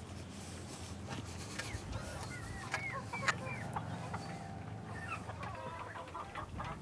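Chickens clucking in a run of short calls that comes thicker near the end.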